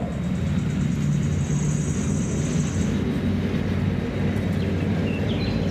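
Main battle tank driving: a steady deep engine drone, with a thin high whine over it that stops about halfway through.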